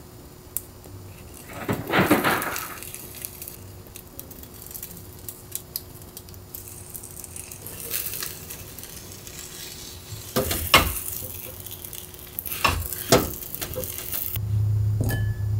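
Beaten egg sizzling in a rectangular tamagoyaki pan on a gas stove, with a few sharp knocks and scrapes of a spatula against the pan as the omelette is rolled. A low hum comes in near the end.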